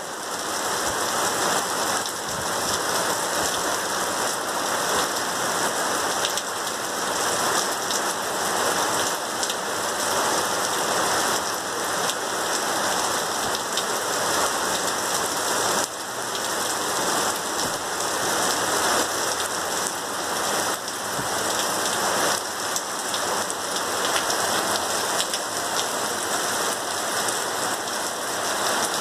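Heavy thunderstorm downpour: a steady, dense hiss of rain pouring onto wet pavement and rooftops.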